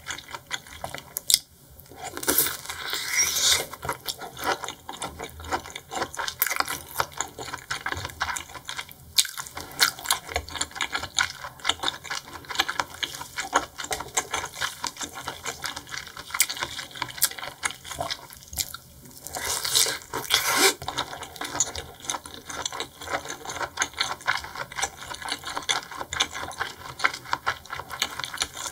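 Close-miked eating of seafood: wet, sticky chewing with a dense run of small clicks and crackles, and a couple of brief louder wet, hissy stretches.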